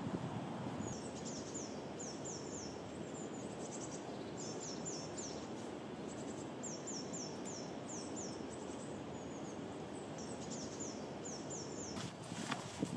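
Steady outdoor background noise with a songbird singing repeated phrases of quick, high, downward-slurred notes every few seconds. A few sharp knocks come near the end.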